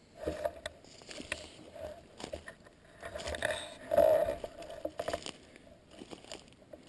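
Footsteps crunching through dry leaf litter, bark and twigs on a forest floor, with irregular crackles and snaps. A brief tone sounds about four seconds in.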